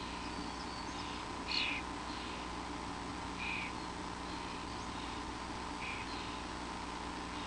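A small pet animal sneezing repeatedly: short, sharp sneezes roughly every two seconds, the loudest about one and a half seconds in. A steady electrical hum runs underneath.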